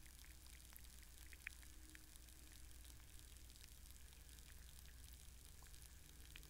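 Faint underwater sound of a shallow puddle heard through hydrophones: small scattered clicks and ticks, irregular and sharp, over a steady low hum.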